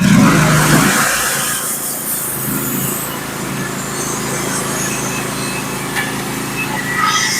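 Norwood HD36v2 portable bandsaw mill's engine throttled up sharply at the start, then running steadily at speed.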